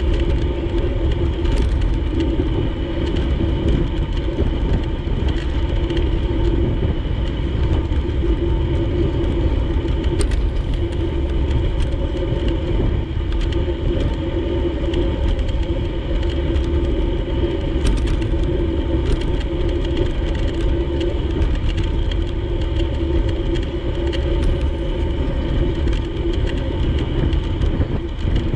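Steady wind and road rumble from riding a bicycle along a street, with a constant hum and a few small ticks.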